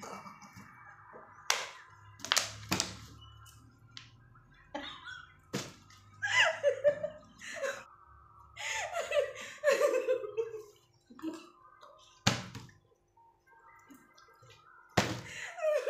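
A plastic bottle being flipped and landing on a cloth-covered floor: a series of sharp, separate knocks spaced a second to several seconds apart.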